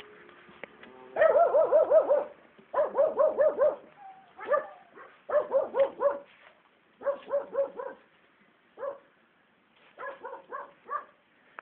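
Akita Inu puppy yapping in quick runs of short, high-pitched barks, about five or six a second, with short pauses between the runs.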